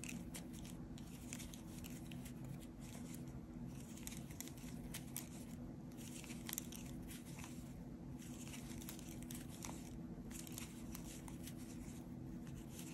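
Faint scratchy rustling and small irregular ticks of yarn being pulled through stitches by a metal crochet hook as single crochets are worked, over a steady low hum.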